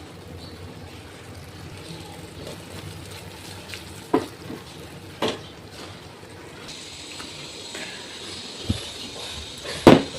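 Kitchen handling sounds: a few short sharp knocks, like utensils or dishes set down, over a steady low hiss, the loudest knock near the end. About two-thirds in, a faint steady high whine joins.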